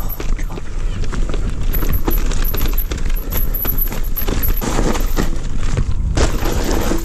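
Electric mountain bike riding fast down a dirt trail: tyres over dirt and roots, with the chain and frame rattling and clicking. There are louder rushes of tyre and wind noise about five and six seconds in as it goes down the drop.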